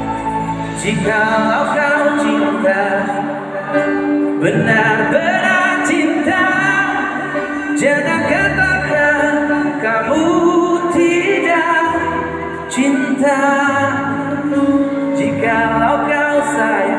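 Live pop band playing with a male lead singer, heard from among the audience.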